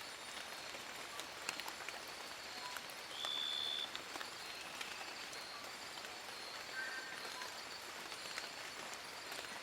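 Rain falling on forest leaves: a steady hiss with many scattered drip ticks. About three seconds in, a clear high note sounds for just under a second, and a pair of fainter notes follows about seven seconds in.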